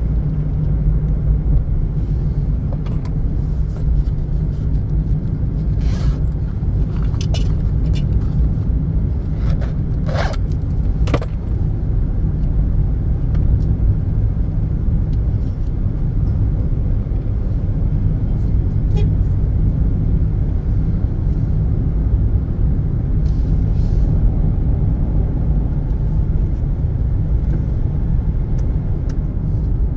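Steady low rumble of a moving road vehicle, with a few short clicks and rattles about six to eleven seconds in.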